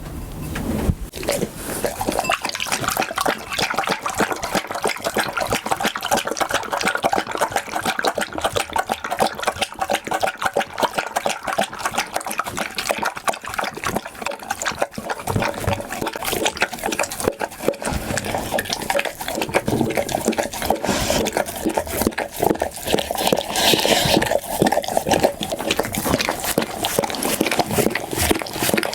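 Pit bull eating with rapid, wet lapping and smacking sounds, many quick clicks a second throughout.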